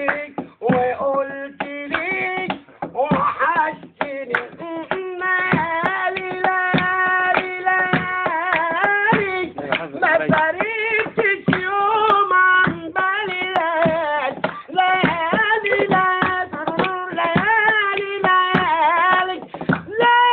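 A man singing a long, wavering melody to steady hand clapping.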